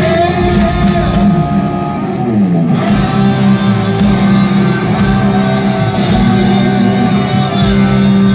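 Live rock band playing, with electric guitar prominent and a guitar note sliding down in pitch about two seconds in.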